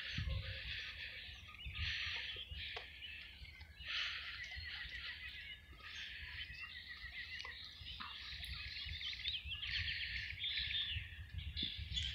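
Songbirds chirping and singing in short repeated phrases, some with quick trills, over a low rumble.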